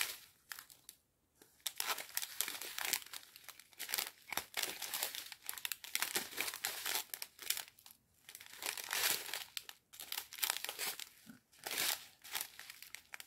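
Small clear plastic sachets of round diamond-painting drills crinkling and rustling as they are handled, in irregular crackling bouts with a short pause about a second in.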